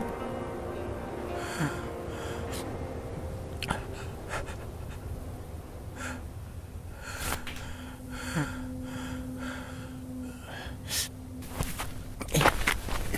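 A man's ragged, gasping breaths and sobs, coming in short separate bursts, with busier movement sounds near the end.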